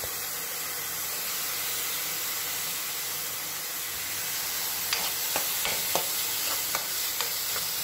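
Chopped onions and green chillies sizzling in hot oil in a kadai, a steady hiss. From about five seconds in, a steel spoon clicks against the pan several times as they are stirred.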